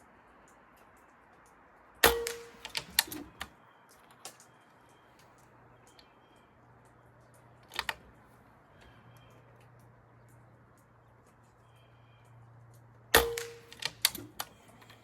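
Two moderated shots from a Benjamin Armada PCP air rifle, about eleven seconds apart, each a sharp crack with a short ring and then a quick run of clicks as the side lever is worked to load the next pellet.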